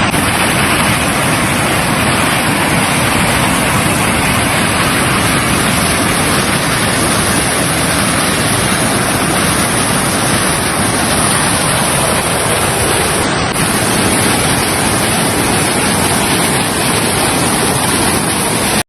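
Loud, steady rushing of water, an unbroken roar with no breaks, cutting off suddenly at the end.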